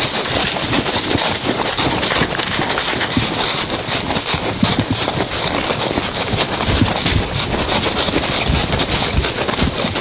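Several people running through dry leaf litter on a forest floor: rapid, dense crunching footfalls mixed with the rustle of clothing and carried gear.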